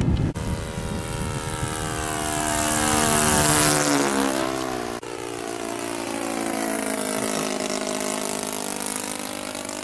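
Radio-controlled scale model warplane's propeller engine flying by: loudest about three and a half seconds in, its pitch dropping as it passes. After a break about five seconds in, the engine note dips and climbs again as the plane flies on.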